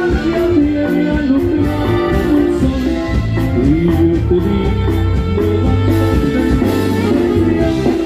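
Norteño band playing loud dance music with a steady bass beat and a running melody.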